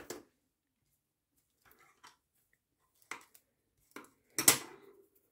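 Hands working paper card and adhesive tape: a few light clicks and taps, then a louder, half-second rustle about four and a half seconds in.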